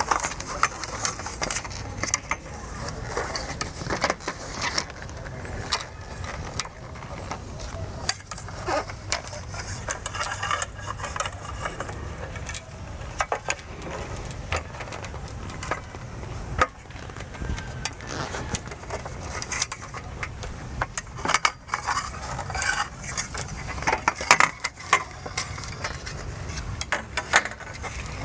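Campsite setup: scattered clinks, clacks and knocks of camping gear and tent parts being handled, with faint voices at times.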